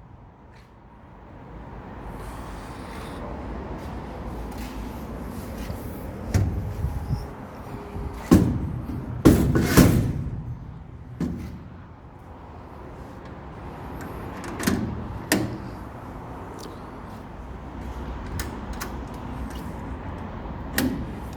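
Doors or lids of a stainless-steel camper toolbox being opened and shut: a series of separate clunks and bangs, the loudest clustered a third of the way through, over a steady low rumble.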